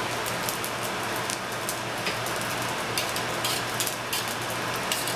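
Rice-and-pasta mix frying in butter in a skillet, a steady sizzle full of small crackles: the rice being sautéed until it turns golden brown.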